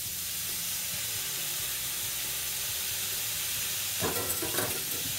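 Lemon juice hitting a hot frying pan of broccoli, garlic, butter and olive oil, sizzling and steaming with a steady hiss. A few light clicks about four seconds in.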